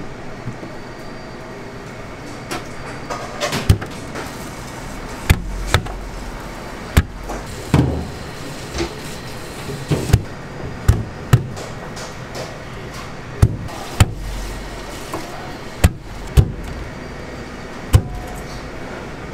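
Kitchen clatter: irregular sharp knocks and clacks, roughly one a second, some with a heavier thud, over a steady background hum.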